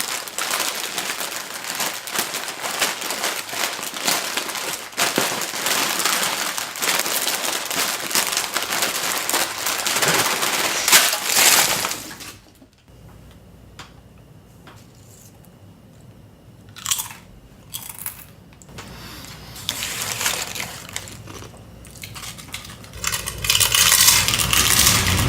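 Loud crinkling and crunching noise for about twelve seconds, then it drops off sharply to a quieter stretch broken by a few short bursts, and grows loud again near the end.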